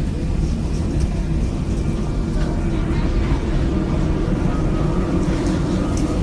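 Steady low rumble of a moving vehicle heard from inside the cabin.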